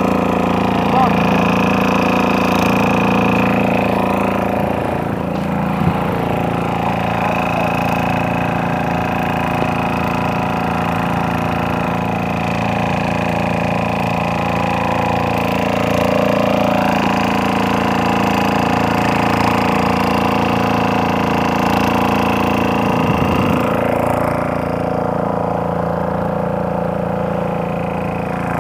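A small wooden fishing boat's engine running steadily under way, a dense drone that holds one pitch throughout.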